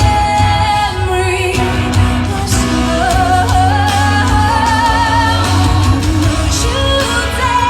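Live pop song: a woman sings held notes with vibrato over a band backing with a heavy, steady bass.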